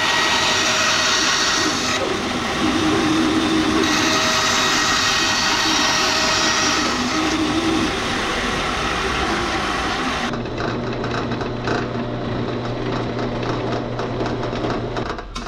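Wooden-framed band saw cutting a piece of saw-blade steel, a loud grinding hiss. About ten seconds in it gives way to a drill press running, a steady motor hum with fine chattering as the bit bores into the steel.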